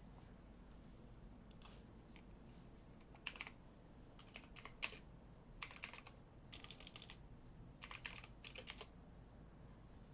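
Typing on a computer keyboard: short runs of key clicks beginning about three seconds in and coming in several bursts until near the end.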